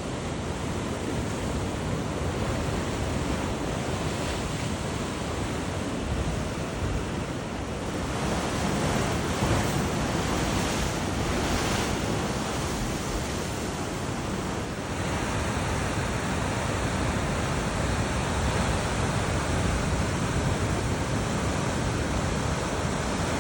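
Ocean surf washing onto the shore in a steady rush, with wind on the microphone; the wash swells louder for a few seconds around the middle.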